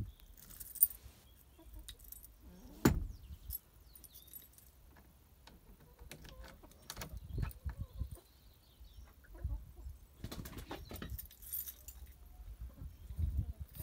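Metal jingling and scattered clicks from the latch of a wooden henhouse door being worked by hand, with one sharp click about three seconds in and low thumps.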